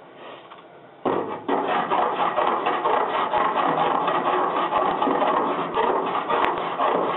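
A hand body file scraping down lead body solder in a joint on a Mustang's body panel. It starts about a second in, with quick, rhythmic back-and-forth strokes.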